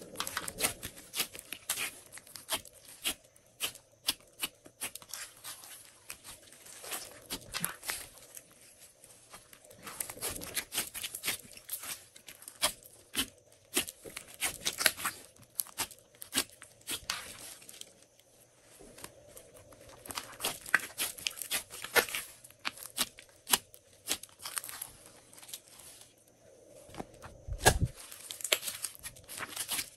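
Glossy slime being kneaded, stretched and pressed by hand: clusters of sticky crackles and pops, with short quieter pauses between handlings. One dull thump near the end as the slime is pressed flat against the table.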